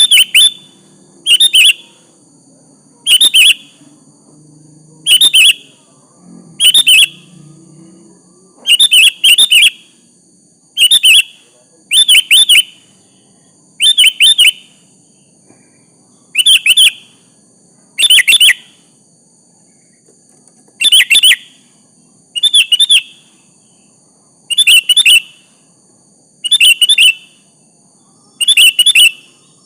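Sooty-headed bulbul (kutilang) calling: short, loud chirped phrases repeated every one to two seconds, some given as quick doubles.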